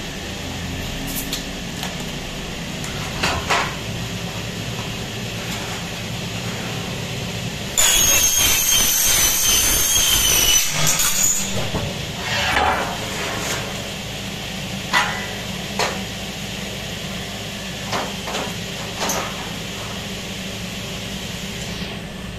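Power saw cutting an aluminium window section: a loud, high-pitched ringing screech for about four seconds a third of the way in. Scattered knocks and taps from the metal being handled come before and after it, over a steady hum.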